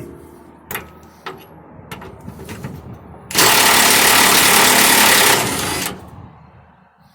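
Impact wrench hammering on a truck's rear shock absorber mount nut in one loud burst of about two seconds, after a few light clicks and knocks of metal.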